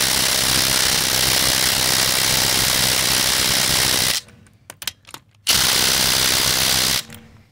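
Ridgid Octane 1/4-inch cordless impact driver on a 3 Ah battery, hammering at car lug nuts torqued to about 110. A long burst of rapid impacts lasts about four seconds. After a short pause with a few knocks, a second burst of about a second and a half follows.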